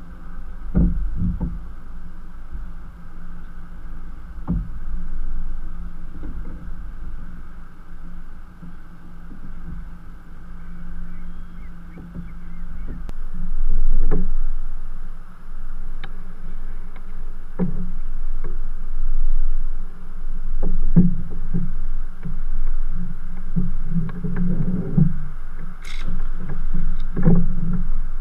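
Knocks and thumps on a Malibu sit-on-top kayak's hull and deck gear, heard through a camera mounted on the deck, over water lapping against the hull. In the second half, paddle strokes in the water add repeated thuds and splashes.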